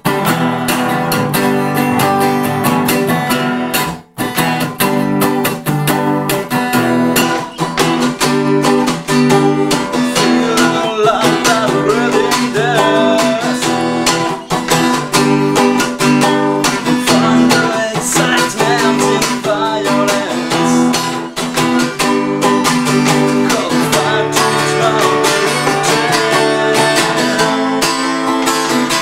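Two acoustic guitars strummed together in a live, unplugged take, with a brief drop-out about four seconds in.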